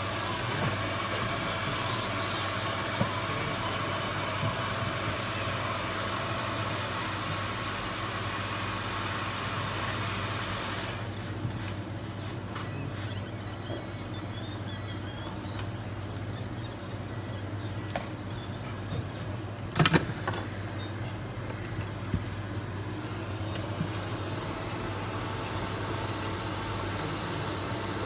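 Steady background hum and noise, which gets quieter about eleven seconds in, with scattered small clicks and one sharp loud click about two-thirds of the way through.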